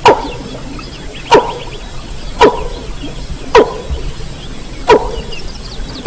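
Call of a mandar (rail) repeated five times, about once every 1.2 s, each a short sharp note that drops steeply in pitch. Faint high chirps sound between the calls. It is a looped call track of the kind played as a lure in rail hunting.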